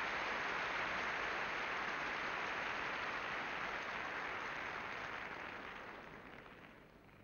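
Arena crowd applauding steadily, then dying away over the last couple of seconds.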